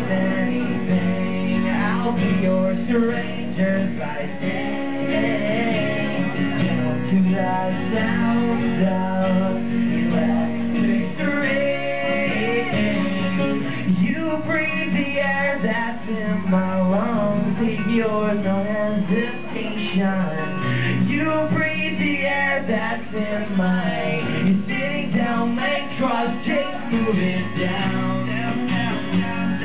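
Live acoustic song: a strummed acoustic guitar with a male voice singing over it.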